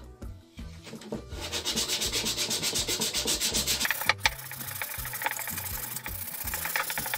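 Sandpaper on a hand sanding block rubbing over wood in quick, rhythmic back-and-forth strokes, starting about a second in. There is a sharp knock about four seconds in.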